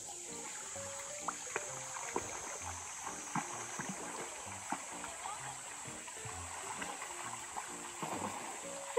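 Light background music of short repeated notes over a steady low beat, laid over the even rush of a shallow rocky stream, with scattered sharp ticks.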